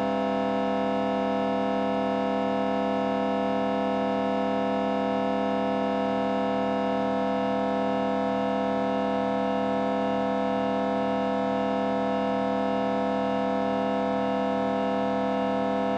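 Synthetic vocoder-processed sound effect: a steady electronic drone of many stacked tones held unchanged, with a faint regular throb underneath.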